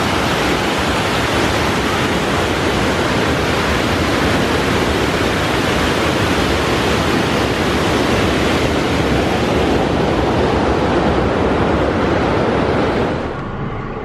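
White water rushing and splashing over a low concrete weir: a steady, loud rush that cuts off shortly before the end.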